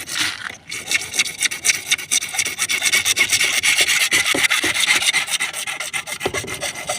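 Fast, steady rasping strokes of a hand tool scraping across material, the rapid strokes running for about five seconds before stopping near the end.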